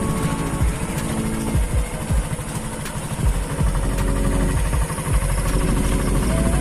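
Engine of a moving vehicle running steadily, with wind buffeting the microphone.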